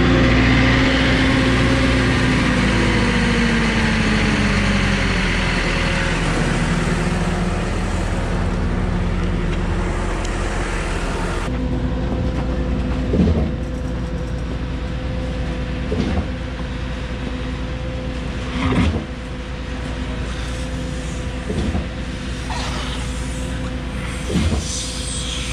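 Heavy engine slowing from high revs down to a lower speed over the first few seconds. A loud hiss cuts off abruptly about halfway through, leaving the engine idling with a short clunk roughly every three seconds.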